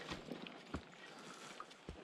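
Hiking footsteps and trekking-pole taps on a rocky, rooty forest trail: a few soft knocks over a faint background hiss.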